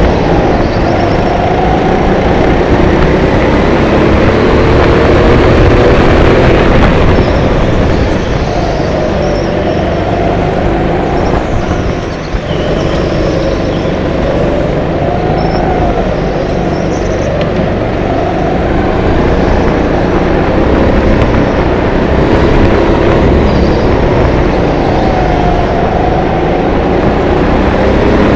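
Onboard sound of a Sodi rental go-kart's engine at racing speed, its pitch rising and falling over a few seconds at a time as the kart accelerates and slows through the turns, over a loud steady noise. The sound briefly drops about halfway through.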